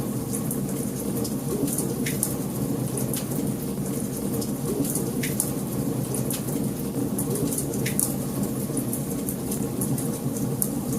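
Wood fire burning in a fireplace: a steady low rumble of flames with sharp crackles and pops at irregular intervals, roughly one a second.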